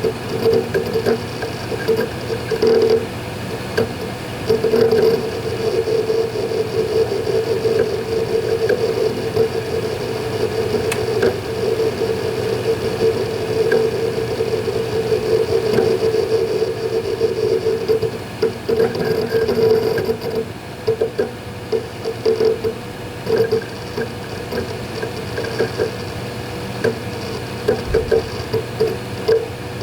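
Western Digital Ultrastar hard drives in a Synology DS220+ NAS working through a Hyper Backup job: a steady hum under a fast, irregular chatter of head seeks. The chatter runs dense for a long stretch, then breaks into short separate clusters in the last third.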